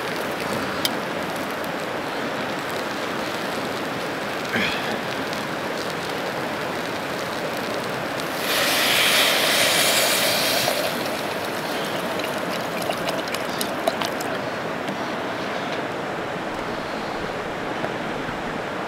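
Water poured from a plastic bottle into a hot stainless pot of sautéed vegetables on a butane camp stove, sizzling and hissing loudly for about two seconds, about eight and a half seconds in. A steady rushing noise runs underneath throughout.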